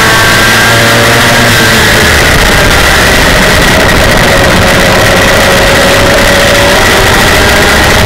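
Super mini race truck's engine running at track speed, heard from inside the cab and loud enough to overload the recording. The engine pitch holds fairly steady with small rises and dips through the turn.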